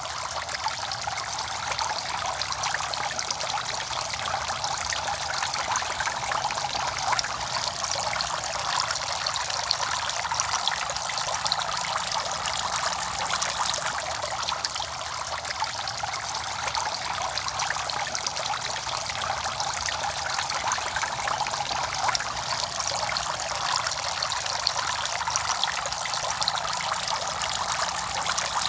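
Small clay-pot fountains spraying thin jets of water that splash steadily into a shallow fish pond: a continuous trickling and splashing.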